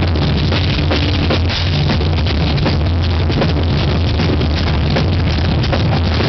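Live metalcore band playing loud and dense, with heavy sustained bass notes and fast drums, recorded on stage with poor, muddy sound.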